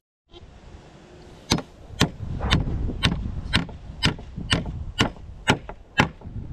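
Hammer blows driving an old nail through a scrap board into a wooden pallet, a steady run of sharp strikes about two a second, starting about a second and a half in.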